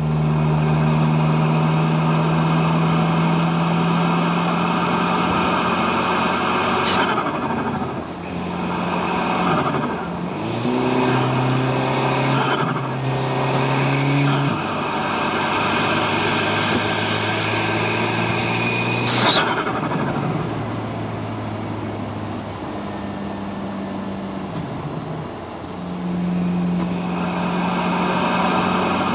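Mk7 Volkswagen Golf GTI's turbocharged 2.0-litre four-cylinder, fitted with a hybrid turbo, running at several steady engine speeds that step up and down. Short bursts of turbo flutter come several times through the middle, the loudest about two-thirds of the way in.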